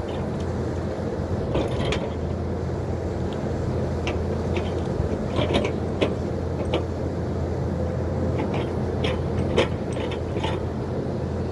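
Hyundai crawler excavator's diesel engine running steadily under working load, with scattered sharp cracks and knocks as it clears brush and stumps; the strongest knocks come about six and nine and a half seconds in.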